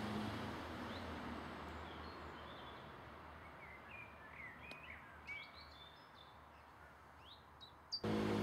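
Small birds chirping in short, quick rising and falling notes over a faint, steady rumble of distant road traffic that fades over the first few seconds. Just before the end the sound cuts suddenly to a louder, steady engine-like hum.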